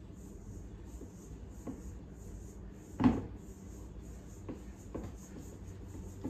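Spatula folding flour into thick cookie dough in a metal mixing bowl: soft scraping and rubbing, with a few light knocks against the bowl, the loudest about three seconds in.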